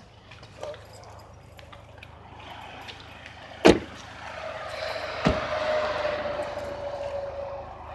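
Two car doors thumping shut about a second and a half apart, over a steady background of vehicle noise.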